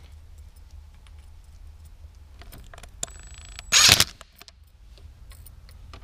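Small metallic ticks and clicks of a socket and bolts working on a short shifter's metal plate as the bolts are threaded in, with one short loud burst of noise about four seconds in.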